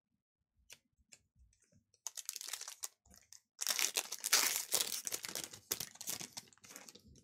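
A Panini Donruss basketball card pack's foil wrapper being torn open and crinkled. A few light clicks come first, then short crinkles about two seconds in, then a louder, denser stretch of tearing and crinkling from about three and a half seconds in.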